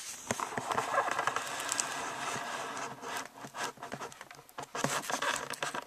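Cardboard of a laptop box rubbing and scraping as the box is handled and its lid is worked open. A steady rustle for about the first three seconds, then scattered small knocks and clicks.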